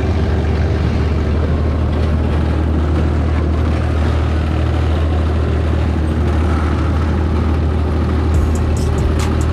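Off-road dune buggy's engine running steadily while riding: a continuous low drone. Near the end a rapid series of sharp ticks begins.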